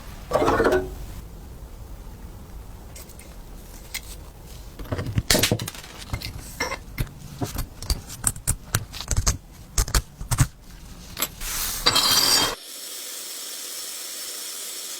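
Light metal parts clinking and tapping in an irregular run of small clicks, with a few louder knocks. Near the end this gives way to a steady hiss.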